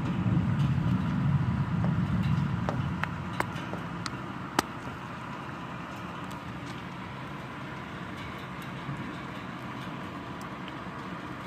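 Thunder rumbling low, swelling in the first few seconds and then dying away, over steady rain. A few sharp ticks land about three to five seconds in.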